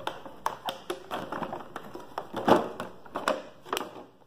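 Thin clear plastic blister tray crackling and clicking as headphones are pulled out of it: a run of sharp crinkles and taps, loudest about two and a half seconds in.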